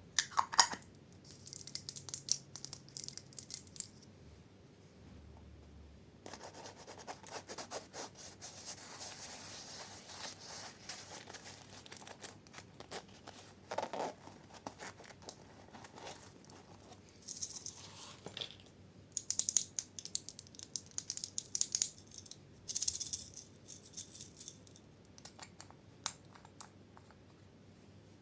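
Slime being squished and worked with small hard mix-ins, giving crisp crackling clicks and rattling in irregular bursts, with a quiet pause about four to six seconds in.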